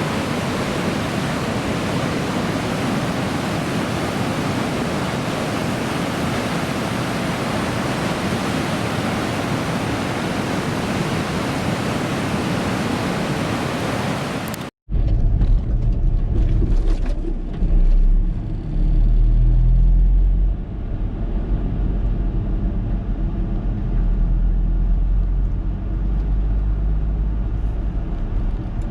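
Heavy surf from a large typhoon swell: a dense, steady wash of breaking-wave noise. About fifteen seconds in it cuts off abruptly to a strong, uneven low rumble.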